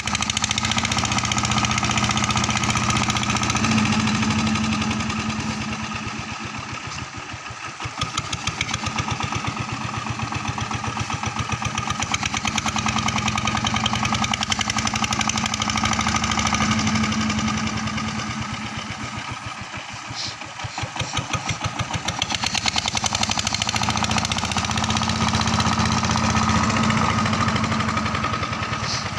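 Engine of a river sand-suction pump machine running steadily with a fast pulsing beat, its loudness sagging and recovering twice.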